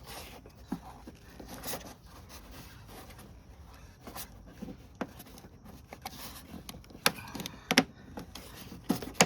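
Hands working a flexible hose into place on a car's radiator and fan assembly: scattered clicks and knocks of parts being handled, with a few sharper knocks near the end.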